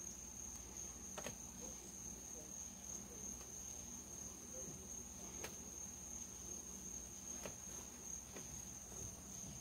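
Crickets trilling in one steady, unbroken high-pitched note, with a few faint clicks scattered through it.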